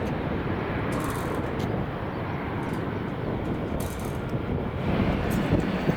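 Aircraft engine noise: a steady rushing with a faint thin whine, under a low rumble of wind on the microphone, growing a little louder near the end.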